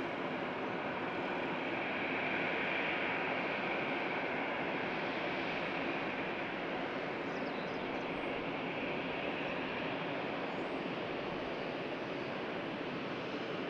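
Jet aircraft engines: a steady, even rush that swells a little a few seconds in, then eases off slowly.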